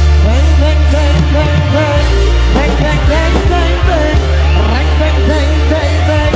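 Live pop-rock band playing loud through a PA: electric guitars, bass and drum kit under a singer's wavering melody.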